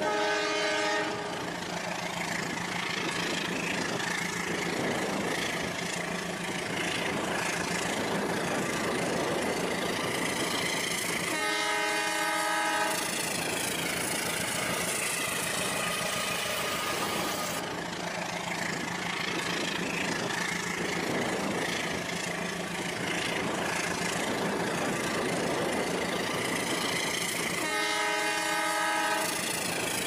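A train horn blows three times, each blast about a second and a half long: one at the start, one about twelve seconds in, and one near the end. Between the blasts there is a steady running-train noise with a low hum under it.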